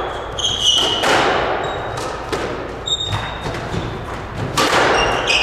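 A squash rally: the rubber ball struck by rackets and smacking off the court walls, about five hard hits each ringing out in the enclosed court, with short shoe squeaks on the hardwood floor between them.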